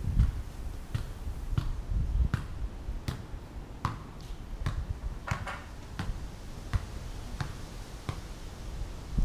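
Wind rumbling on the microphone, with scattered sharp taps and clicks at irregular spacing.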